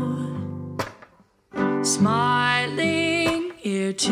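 Background song played on acoustic guitar, strummed and plucked. A few sharp clicks cut across it, about one and two seconds in and again near the end.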